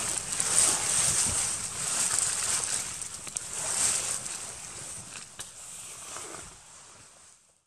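Hissing, rustling noise that swells and eases with a few faint ticks, fading out near the end.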